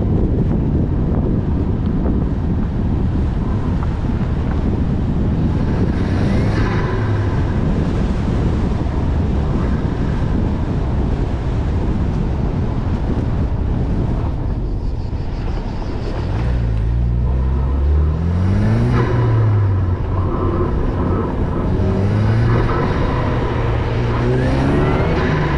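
Ford Focus RS Mk3's turbocharged 2.3-litre four-cylinder engine accelerating through the gears along a twisty road, under heavy wind and road noise on the microphone. Wind and tyre noise dominate at first; about two-thirds of the way in, the engine note climbs, drops at a gearshift and climbs again.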